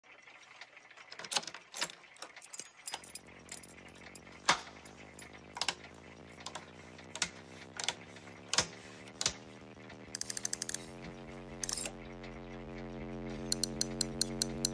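Switches and dials clicking as a large amplifier is powered up, with two runs of rapid ratcheting clicks from a knob being turned. An electrical hum comes on about three seconds in and swells steadily louder toward the end.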